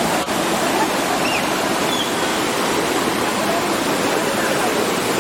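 A waterfall's falling water, a steady, dense rushing, with a brief dip about a quarter second in.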